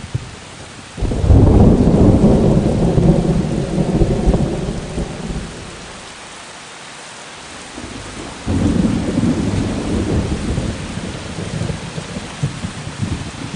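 Thunderstorm: steady rain hiss with two rolls of thunder. The first breaks suddenly about a second in and rumbles away over several seconds; the second starts about eight and a half seconds in and fades slowly.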